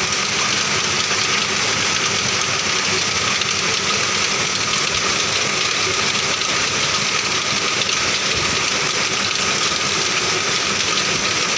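Computerized flat knitting machines running, the Feng Fan FF336CT among them: a steady mechanical noise with a constant high whine.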